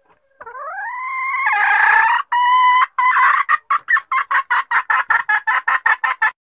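Junglefowl hen calling: a rising drawn-out call, a held note, then a fast run of clucks at about four a second that stops abruptly. This is a hen call of the kind played as a lure for wild junglefowl.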